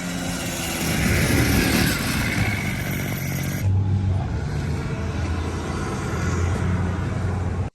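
Small engine of a motorized scooter running steadily under way, with a broad hiss over it that drops away about three and a half seconds in.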